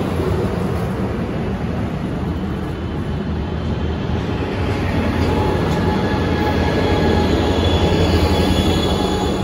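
Capitol Corridor bilevel passenger train rolling past at low speed as it pulls out, a steady rumble of wheels on rail over a low diesel hum, with its Siemens Charger diesel locomotive going by near the end. Thin high squeal of wheels on rail comes in from about halfway through.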